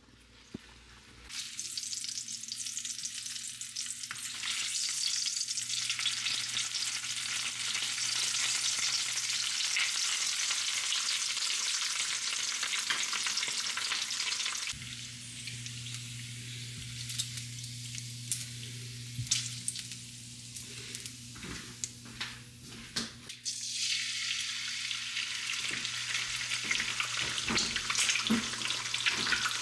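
Bacon strips sizzling in a frying pan, a steady dense hiss. Several seconds in the middle drop to a low hum with a few sharp clicks, then an egg fries loudly in the hot bacon fat near the end.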